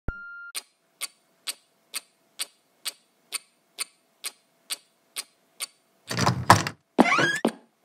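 A short electronic beep, then a clock ticking steadily about twice a second. About six seconds in, loud whooshing transition effects take over, one with a rising sweep.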